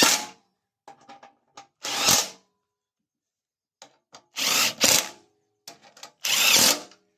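Power drill running in four short bursts of about half a second each, driving in bolts, with faint clicks in between.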